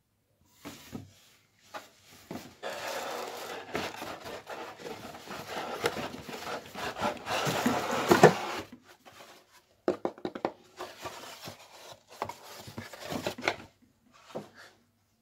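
A molded paper-pulp packaging insert rubbing and scraping against the inside of a cardboard box as it is worked loose and lifted out, loudest about eight seconds in. Then scattered light crackles and taps.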